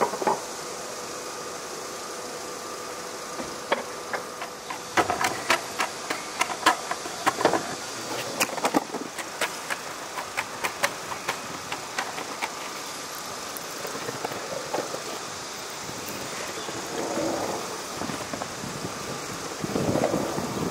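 Skateboard wheels rolling over stone paving, swelling twice near the end as the board comes closer. This sits over a steady hum, and a run of sharp irregular clicks and clacks passes through the middle.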